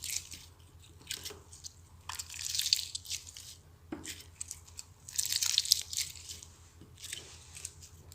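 Slime being squeezed and pressed by hand, giving wet crackling, squishing bursts about every one to one and a half seconds.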